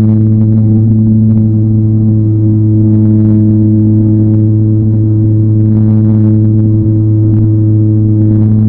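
Loud, steady buzzing drone at one constant pitch from an RC airplane's motor and propeller, picked up by a camera taped to the airframe.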